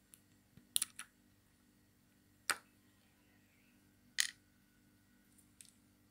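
A few sharp, irregular clicks of small hard parts, such as the fishing reel's housing and ball bearings, being handled and set down on a wooden tabletop, with quiet in between.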